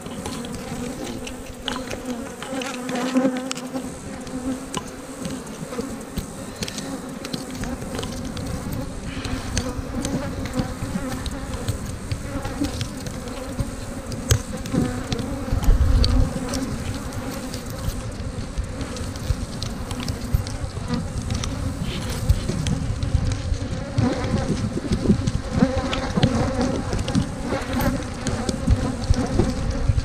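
Swarm of honey bees buzzing around an open hive, a steady droning hum, with scattered knocks and clicks from hive boxes and frames being handled and a low thump about halfway through.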